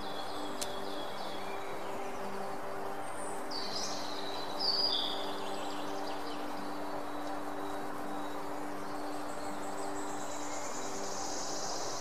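Small songbirds calling: a few sharp high chirps about four to five seconds in, and a rapid high trill near the end, over a steady low hum.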